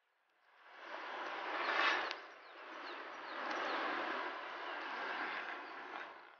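Steady rushing noise of road traffic passing, swelling to a peak about two seconds in, holding, then fading away near the end.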